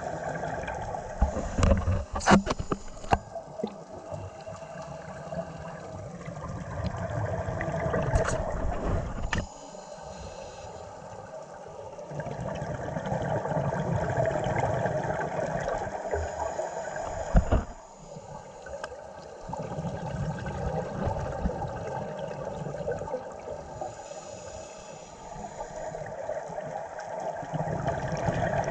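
Scuba regulator breathing underwater: long bubbling exhalations every five or six seconds with quieter stretches between, and a few sharp clicks in the first few seconds.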